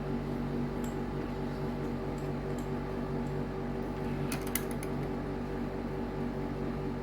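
A steady machine hum made of several constant tones, with a few light clicks about four and a half seconds in.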